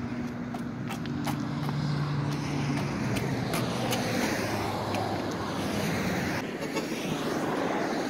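Highway traffic going past: a steady rush of tyre and engine noise, with one vehicle's engine hum that fades out about three seconds in.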